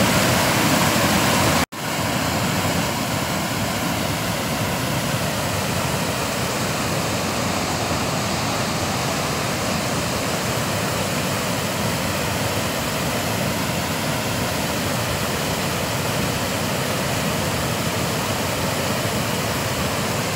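Steady rushing of a flooded river's fast-flowing water. About two seconds in, the sound cuts out for a split second, then resumes slightly quieter.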